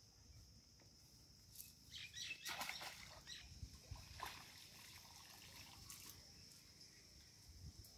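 Faint outdoor ambience by a pond: a steady high-pitched whine, with scattered light crackles and rustles about two to three and a half seconds in and again near four seconds.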